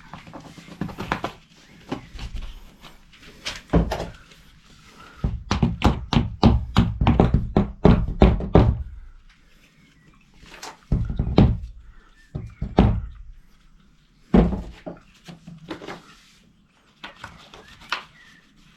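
Heavy thunks and knocks, hard impacts in bursts: a fast run of them in the middle, then a few separate groups later.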